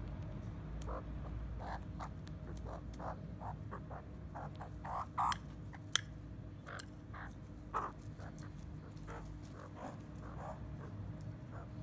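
Australian magpies giving many short, soft calls while they forage, with a sharp tap about six seconds in as a beak strikes the clear plastic bowl.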